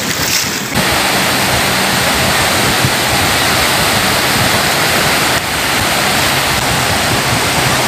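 Small sea waves breaking and washing up on a sandy beach: a steady, loud rushing of surf.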